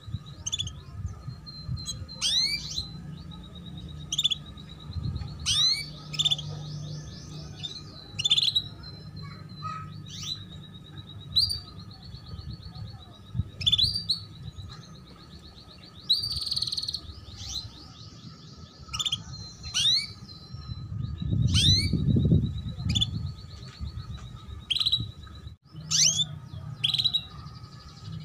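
Female canaries calling, a repeated short 'cuit cuit' chirp, each call a quick falling sweep, coming about one to two a second, with short buzzy trills between. A low rumble swells for a couple of seconds about three quarters of the way through.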